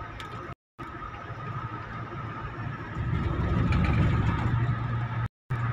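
Road and engine noise inside a moving car's cabin: a steady low drone with tyre hiss that grows louder about three seconds in. The sound cuts out completely for a moment twice.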